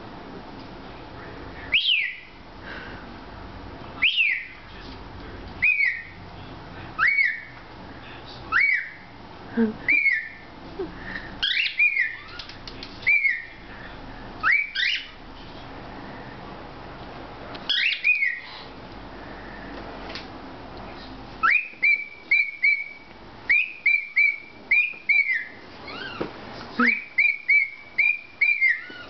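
Cockatiel repeating a short whistled call, its imitation of a human 'Nahm!'. Each call snaps up in pitch and falls back, one every second or two, then from about two-thirds of the way through come in quicker runs of short clipped notes.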